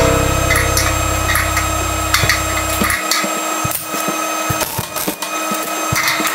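Sheet-steel flue pipe being handled and clamped with locking pliers: scattered metallic clicks and knocks. A low steady hum underneath cuts off about three seconds in.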